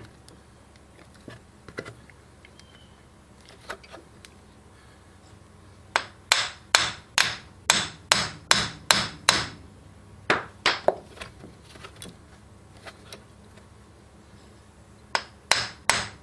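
Hammer blows driving a new front axle shaft into a UTV's front differential. After a few light taps comes a fast run of about a dozen sharp metal strikes, roughly three a second, then a few more, a pause, and another quick run near the end.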